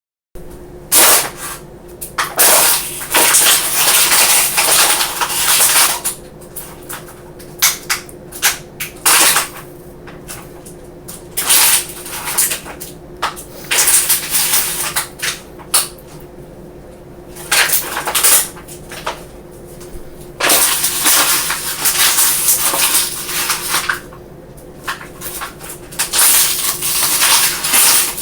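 Plastic water bottle squeezed and twisted by hand, crackling and crinkling in repeated bursts, some short, some a few seconds long, to imitate back and neck joints cracking.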